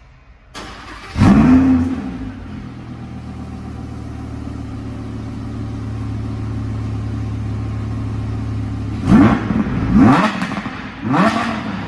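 Audi R8 V10 Plus's 5.2-litre V10 starting up with a sharp rev flare, then settling into a steady idle. Near the end it gives three quick throttle blips, each rising and falling.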